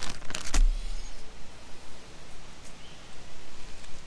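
Quiet outdoor background with a few short, sharp rattles in the first half-second, followed by a brief low rumble.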